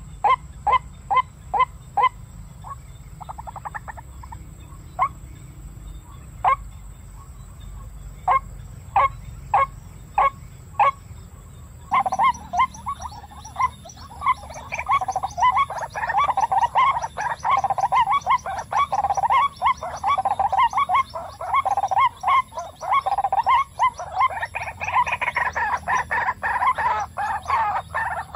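White-breasted waterhen calls. First comes a series of sharp, evenly spaced notes about three a second. About twelve seconds in, the sound switches suddenly to a dense, continuous chorus of overlapping croaking calls.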